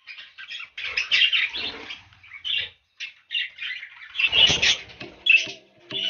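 Budgerigars chirping and chattering in quick runs of short, high calls, with a louder flurry of wings about four seconds in.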